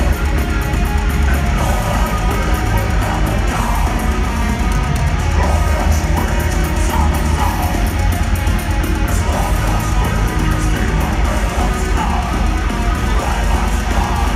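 Melodic death metal band playing live at full volume, heard from the crowd in an arena: distorted electric guitars over heavy bass and drums, with a strong low end.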